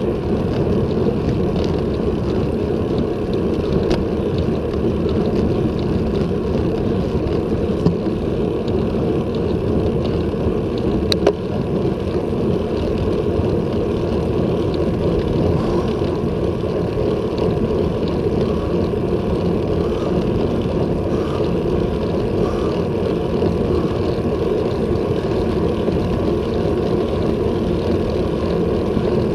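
Wind rumbling steadily over a handlebar-mounted action camera's microphone on a bicycle riding at about 20 km/h, mixed with tyre noise on asphalt. One sharp click about eleven seconds in.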